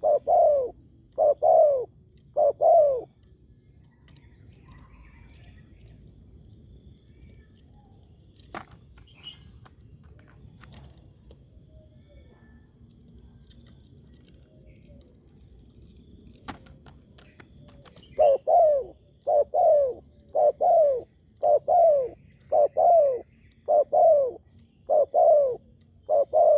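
Spotted dove (tekukur) cooing in short notes that fall in pitch: a few in quick succession at the start, then a long pause with only faint background and a couple of light clicks, then about a dozen coos in a steady series near the end.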